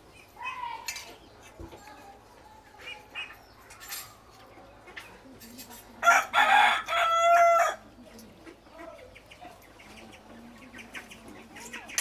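A rooster crowing once, about six seconds in, with a few faint knocks and small sounds around it.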